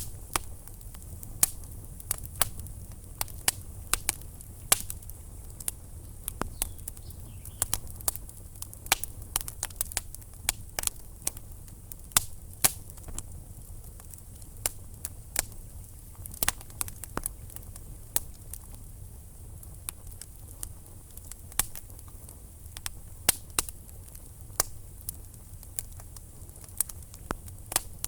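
Wood fire burning in a fireplace: logs crackling and popping with sharp irregular snaps over a low steady rumble of the flames.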